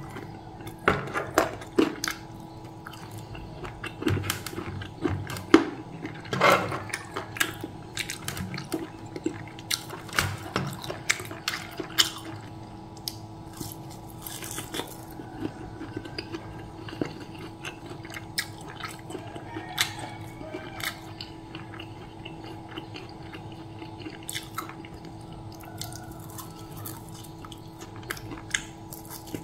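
Close-up eating sounds of a person chewing fried chicken and crisp fried omelette: wet chewing, lip smacks and crunches. They are dense in the first dozen seconds and sparser after, over a faint steady hum.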